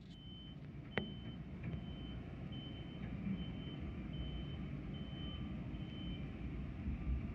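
A construction vehicle's reversing alarm beeping over and over, one high beep about every 0.8 seconds, stopping near the end. Wind rumbles on the microphone throughout, and a single sharp knock sounds about a second in.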